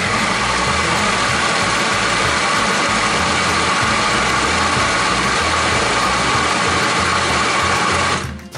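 Cuisinart food processor running steadily while it purées a tomato salsa: an even motor whine over a churning noise. It is switched off and stops abruptly near the end.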